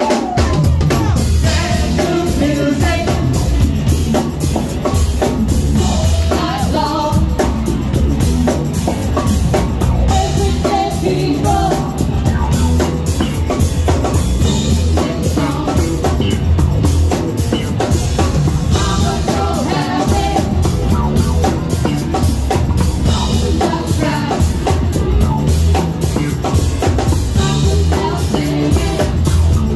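Live band playing: electric bass guitar and a drum kit keeping a steady beat, with women singing.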